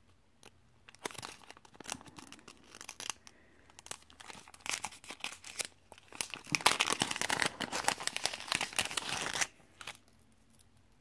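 Small plastic jewellery bag being handled and opened: a few light clicks and rustles at first, then a spell of dense crinkling and tearing of the plastic from about halfway through that stops shortly before the end.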